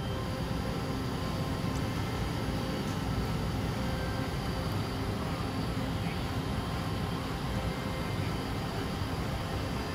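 Steady low rumble and hum of shipboard machinery and ventilation, even in level, with a few faint steady tones above it.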